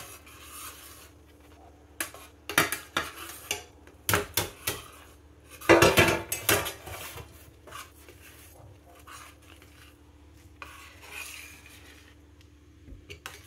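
Metal spoon scraping and clinking against a stainless steel pan while stirring a thick cashew-and-sugar paste on the stove. The clatter comes in irregular bunches, busiest in the first half and sparser near the end.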